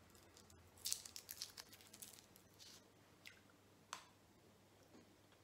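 Faint crinkling of a small Kinder chocolate's wrapper being picked open by hand: a run of small crackles for about two seconds, then a few single soft ticks.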